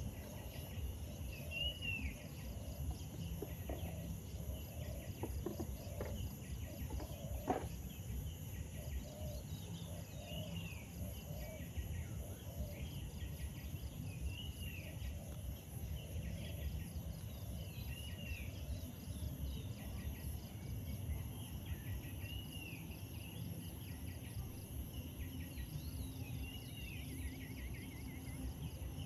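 Steady high insect drone, with a short rising-and-falling call repeated every few seconds, over a low rumbling background. A single sharp click about seven and a half seconds in.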